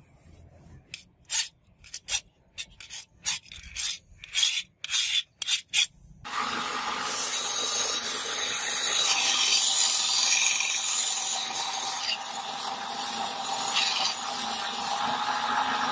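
About a dozen short separate scraping strokes, then a belt grinder comes in abruptly about six seconds in and runs steadily, grinding a steel sword blade pressed flat against its abrasive belt, a continuous grinding noise over a steady motor hum.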